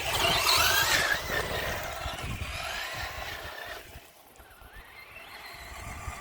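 Electric RC car's motor whining, its pitch rising and falling as the car speeds up and slows, over a hiss of tyres and spray in the puddles; it fades away about four seconds in.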